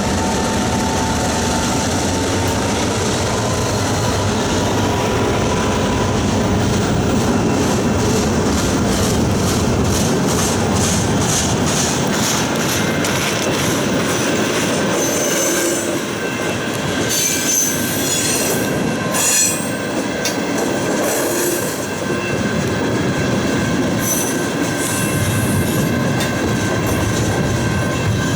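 CN train 532's cars rolling steadily past a level crossing with no horn. The wheels clack rhythmically over the rail joints, several beats a second, through the first half, then give high-pitched wheel squeal in the second half.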